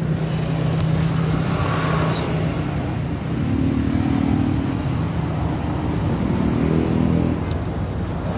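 An engine running steadily nearby, its pitch rising briefly about four seconds in and again near seven seconds.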